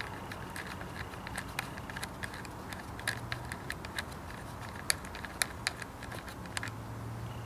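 Small irregular clicks and light rattles of hands handling motorcycle wiring and connectors, over a faint steady low hum.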